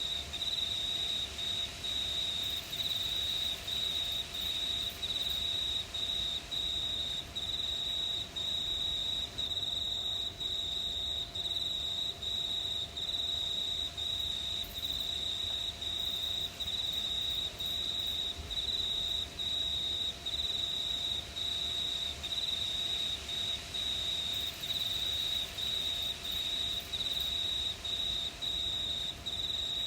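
Crickets chirping at night: one steady high-pitched trill broken by short, regular gaps, going on without change.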